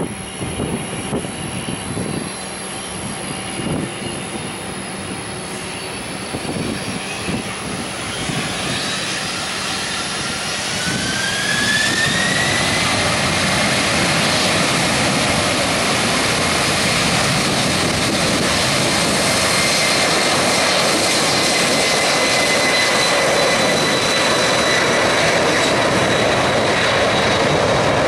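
McDonnell Douglas MD-11 freighter's three jet engines spooling up to takeoff power: a whine rises in pitch from about eight to twelve seconds in. The engines then run loud and steady as the aircraft rolls down the runway.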